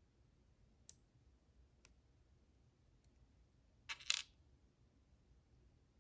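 Light metallic clicks from a padlock's lock core as its C-clip is worked off, then a short metallic clatter about four seconds in as a small metal part drops onto a hard surface.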